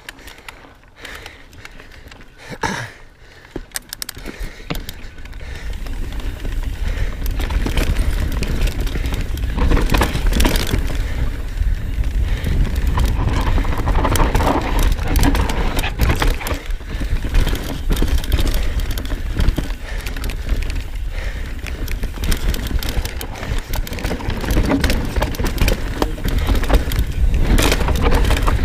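Knolly Fugitive mountain bike riding down a dirt forest trail: tyres rolling over dirt and roots, with the bike rattling and clicking over bumps and a low rumble of wind on the camera microphone. Quieter for the first few seconds, then louder and steady from about six seconds in as speed picks up.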